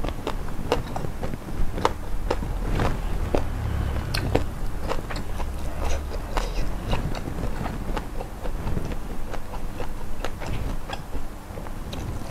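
A person chewing and crunching food close to the microphone, with many irregular crisp crunches.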